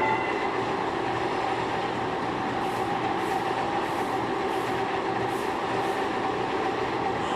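Machine tool running steadily while machining a screw conveyor part, with a constant hum and tone. About a third of the way in, a faint high swish starts repeating roughly every two-thirds of a second.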